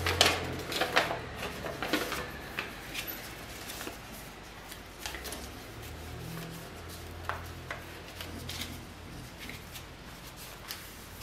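Paper and card stock rustling and crinkling as sheets are unfolded, picked up and sorted by hand: a thick cluster of crackles in the first two seconds, then sparser, softer rustles and taps.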